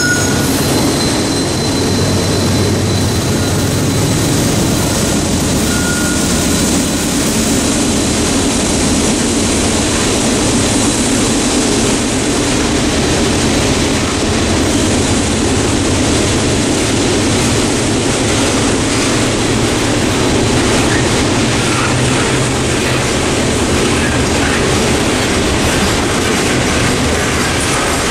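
Norfolk Southern coal train passing close by. A GE AC44C6M diesel-electric locomotive runs past for the first few seconds, then coal hopper cars roll by with steady steel-wheel-on-rail noise.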